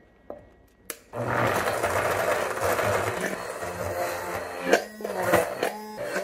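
Stainless-steel immersion blender starting about a second in and running steadily in a tall glass jar, whipping hot liquid bone marrow with an ice cube so it emulsifies and turns thick and white. There are a few short knocks near the end.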